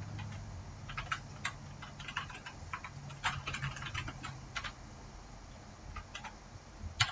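Typing on a computer keyboard: irregular key clicks, some in quick runs.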